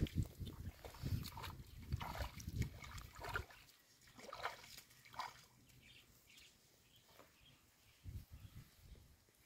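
Bare feet wading through shallow muddy water, a splash and slosh with each step, busiest in the first few seconds, quieter in the middle, with a few more steps near the end.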